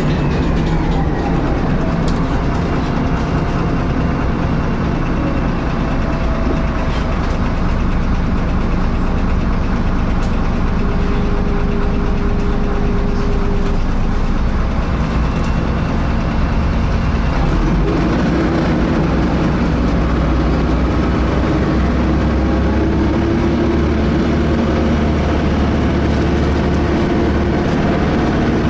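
Inside a DAF-chassis Alexander ALX300 single-deck bus on the move: steady engine and road noise with a whine on top, which grows stronger about two-thirds of the way through. The whine sounds like a cooling fan, but its cause is unknown.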